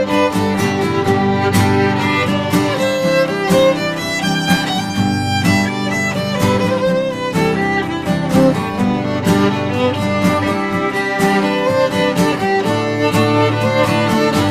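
Folk band's instrumental break: a violin plays a melodic lead over two acoustic guitars strumming a steady rhythm.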